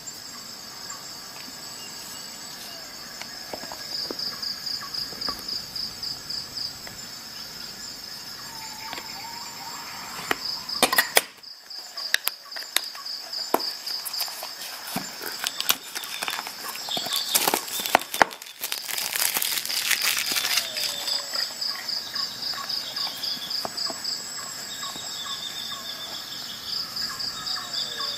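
Insects chirping in a steady, rapidly pulsing high trill. In the middle, rustling and clicks from handling a cardboard box and a metal card tool come and go, louder than the chirping.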